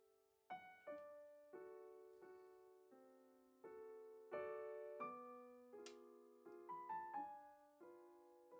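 Soft, slow piano music: single notes and chords struck roughly once a second, each left to ring out and fade.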